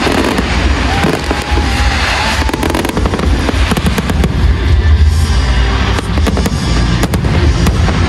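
Fireworks display: aerial shells bursting one after another with dense crackling and low booms, loud and unbroken.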